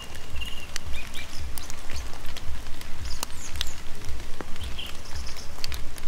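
Forest ambience of raindrops dripping and pattering in scattered sharp ticks, with short high bird chirps now and then. Underneath is a low, even throb repeating about twice a second.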